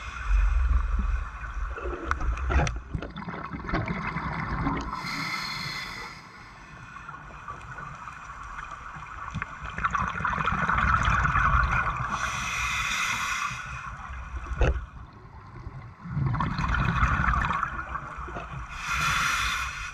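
A scuba diver breathing underwater through a regulator, with a burst of exhaled bubbles about every seven seconds, three in all. A few low thumps and a sharp knock come in between.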